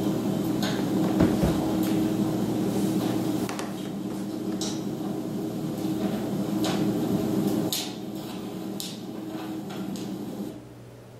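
A low steady hum with a few held tones, with scattered sharp clicks and knocks over it. The hum drops in level about eight seconds in and cuts off suddenly near the end.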